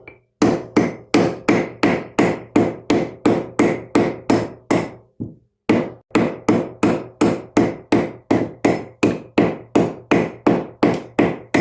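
Hammer blows driving a walnut wedge into the top of an axe handle to seat the axe head: steady, loud strikes about three a second, with one short break about halfway.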